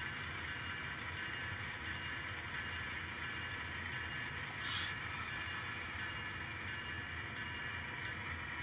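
N scale model train locomotive running slowly along the track, a steady even running sound, with a brief soft hiss about halfway through.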